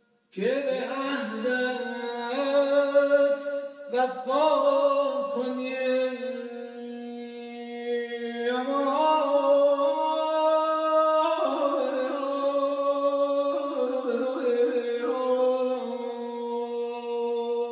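A man singing Persian classical avaz unaccompanied: long held notes that bend into quick ornamented turns, with a short breath break about four seconds in.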